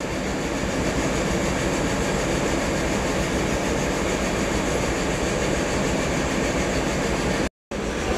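Steady noise of a train close by, an even rumble and hiss with no distinct tones, which drops out for a split second near the end.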